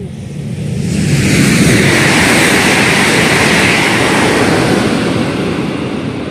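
Jakarta–Bandung high-speed electric train (CRRC KCIC400AF) passing at high speed on slab track: a loud rush of wheel and air noise that builds over the first second, holds, then fades near the end as the train clears.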